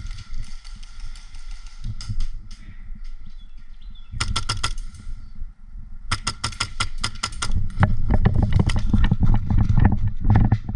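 Airsoft guns firing on full auto: a short, quick burst of sharp shots about four seconds in, then rapid, almost continuous firing from about six seconds to the end.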